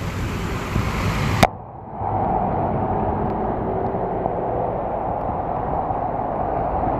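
Heavy rain on a flooded road, with a vehicle driving through the floodwater. A sharp click about a second and a half in, after which the rain and water sound duller.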